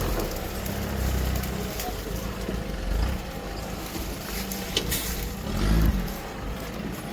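Engine of a Mahindra off-road vehicle running with a low rumble, swelling briefly about six seconds in.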